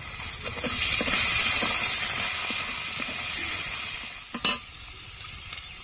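Potatoes, tomato, green chillies and ginger paste sizzling in hot mustard-coloured frying oil in a pan, stirred with a spatula that scrapes the pan. The sizzle is loudest in the first two seconds and dies down after about four seconds. Two sharp knocks follow near the end.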